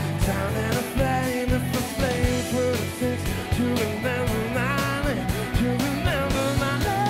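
Live blues-rock band: a Stratocaster-style electric guitar plays a lead line with bent, wavering notes over a steady drum beat and bass.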